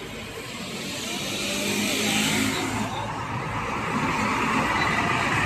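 Street traffic: a motor vehicle's engine running, growing louder over the first two seconds and then holding steady.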